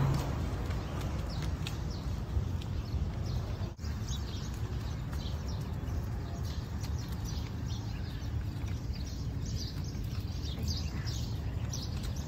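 Birds chirping, many short high calls scattered throughout and busier in the second half, over a steady low rumble.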